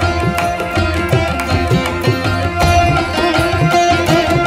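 Indian-style instrumental background music: a plucked-string melody over a steady drone, with low drum strokes.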